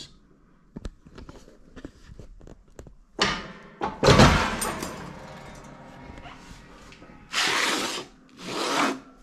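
Foot-operated treadle guillotine shearing a sheet of aluminium: a clunk about three seconds in, then the heavy cut about four seconds in, ringing on briefly. Near the end, two scrapes as the cut plate is slid across the steel bed.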